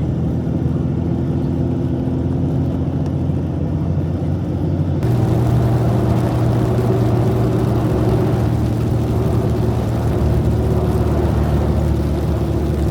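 A vehicle driving, its engine holding a steady low drone. About five seconds in the sound changes abruptly and a broader rushing noise comes in over the drone.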